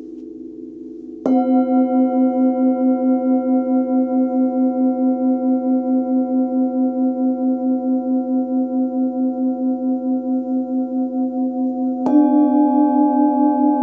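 Hand-forged singing bowls struck with a felt mallet. One strike about a second in rings on with a slow, pulsing wobble. Near the end a second strike adds a slightly higher note over the still-ringing first.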